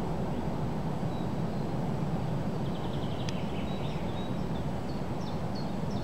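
Strong wind blowing across the microphone: a steady low rumble. Faint small-bird chirps and a short trill sound over it from about a second in.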